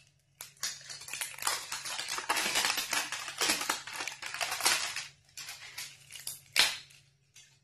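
Thin plastic wrapping film crinkling and crackling as it is peeled off a hair-oil bottle's spray-pump top, followed by a few sharp clicks and rustles as the pump cap is handled, one click louder near the end.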